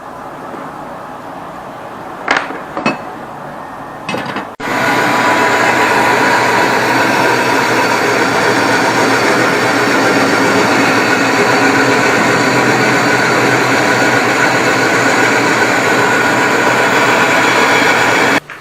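Two short knocks, then a power tool starts about four and a half seconds in and runs loud and steady until it cuts off near the end.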